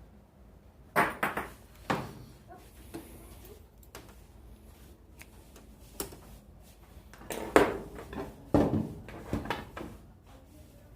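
Irregular knocks and clatters of objects being handled and set down, with a cluster of sharp knocks about a second in and a louder cluster around seven to nine seconds in.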